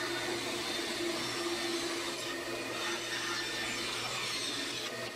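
Bandsaw running with a steady hum, its blade cutting a wooden spoon blank to rough in the handle profile.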